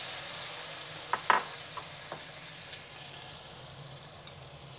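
Diced tomatoes sizzling in hot oil in an aluminum pot while being stirred with a spatula; the sizzle slowly dies down as the tomatoes cool the oil. About a second in, the spatula knocks against the pot four times, the second knock the loudest.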